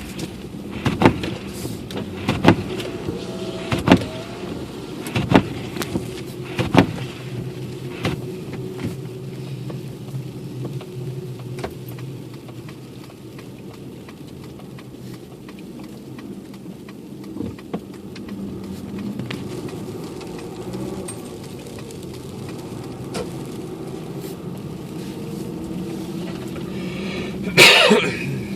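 Car engine running steadily, heard from inside the cabin. Sharp regular knocks come about every second and a half for the first eight seconds, and a brief louder noisy sound comes near the end.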